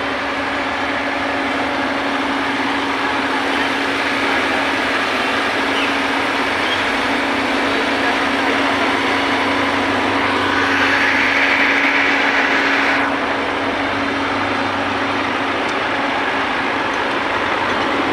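Heavy truck engine running steadily, a constant low drone with a brighter, louder stretch lasting about two seconds just past the middle.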